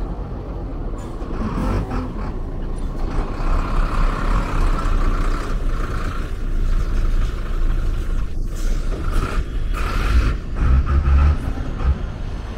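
City street traffic: vehicle engines and tyres passing close by, over a constant low rumble that swells and eases as vehicles go past.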